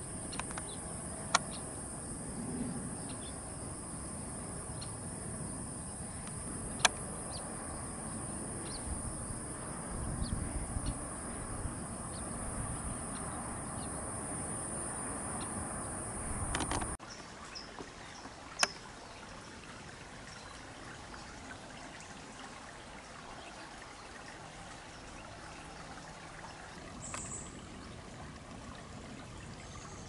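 Outdoor ambience: a steady high-pitched hiss over a low background that stops suddenly about seventeen seconds in, giving way to quieter background. A few sharp clicks, and a brief high chirp near the end.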